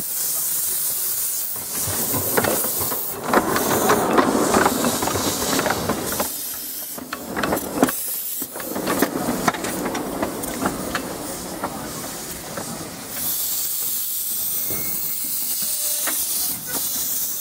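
Miniature-gauge steam locomotive hissing steadily with escaping steam as it moves slowly along the track. Irregular clanks and clicks come and go through the first two-thirds.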